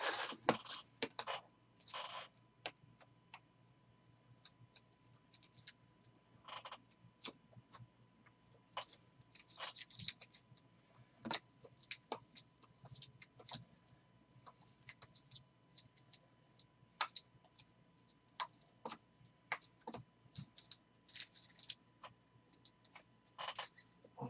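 Hard plastic card holders (top loaders and thick cases) clicking against each other and scraping over a tabletop as stacks of trading cards are handled and set down. The sound comes as scattered short clacks and slides with gaps between them.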